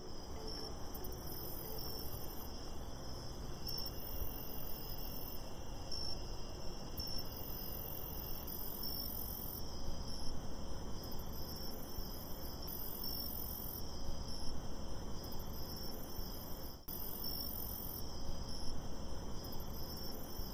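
Crickets and other insects calling: a steady high trill with regular brighter pulses, and a second, higher buzzing call about a second long that comes back every two to three seconds. A steady low background noise runs beneath.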